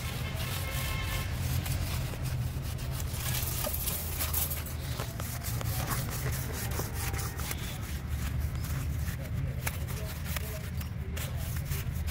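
A brush scrubbing a wet black coating onto the rough inside wall of a cement pot, irregular rubbing strokes, over a steady low hum.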